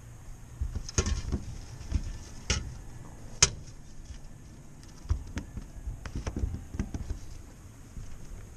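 Scattered clicks and knocks of a landing net and its long aluminium pole being handled on a pontoon boat deck and rail. The sharpest knock comes about three and a half seconds in, and a quicker run of small knocks follows a couple of seconds later.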